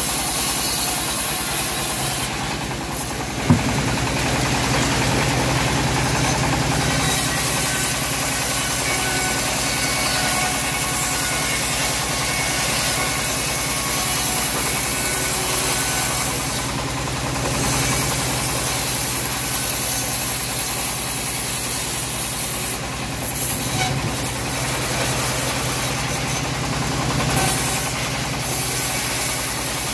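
Homemade bandsaw mill running steadily as its blade rips a teak log lengthwise, with a single sharp knock about three and a half seconds in.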